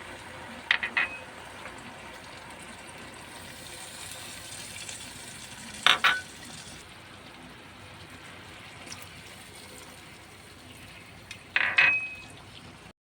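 Food sizzling in a frying pan, with a metal utensil clinking and scraping against the pan three times: about a second in, about halfway, and near the end, each with a short metallic ring.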